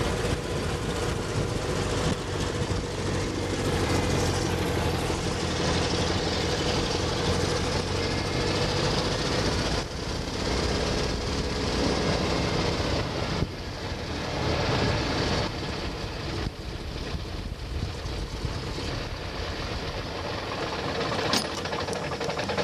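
New Standard biplane's engine running, with wind noise rushing through the open cockpit as the plane rolls across a grass field. It quiets somewhat about halfway through as the plane slows, and there is a single click near the end.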